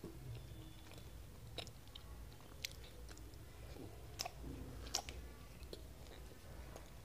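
Faint handling of a plastic hand-pull vegetable chopper full of chopped onion and tomato, with a few sharp plastic clicks as its lid is worked loose and taken off.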